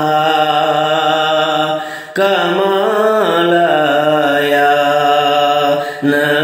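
A male voice singing a naat, unaccompanied and chant-like, holding long drawn-out notes. The singing breaks off briefly about two seconds in and again near the end.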